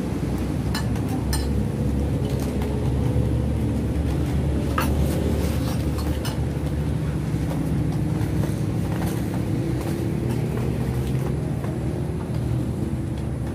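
Steady low motor rumble with a faint drone that slowly wavers in pitch, like an engine running nearby. A few light clicks and clinks of spoons and dishes come through over it.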